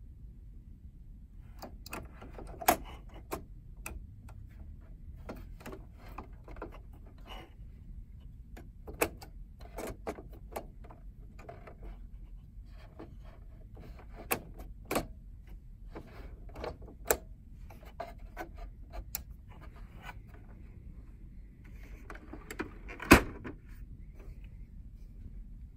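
Scattered plastic clicks and taps as an HP 63 tri-color ink cartridge is handled and pressed into the carriage of an HP OfficeJet 5255 printer. One loud knock near the end as the printer's cartridge access door is shut.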